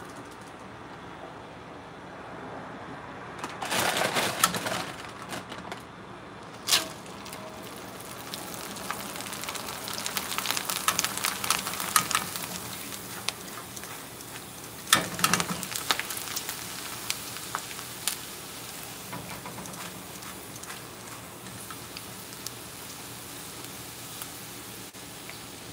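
Dried fryums (coloured ring-shaped snack pellets) sizzling in hot oil in a mesh strainer dipped in a wok, with loud surges of crackling sizzle about four seconds in, again around ten to thirteen seconds, and at fifteen seconds. One sharp clink with a short ring about seven seconds in.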